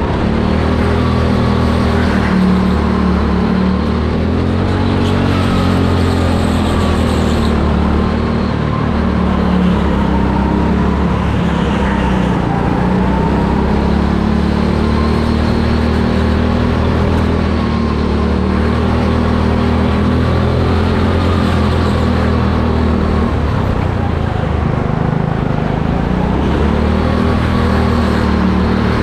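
Go-kart engine running hard, heard from the driver's seat, its pitch rising and falling over and over as the kart accelerates down the straights and slows into the corners.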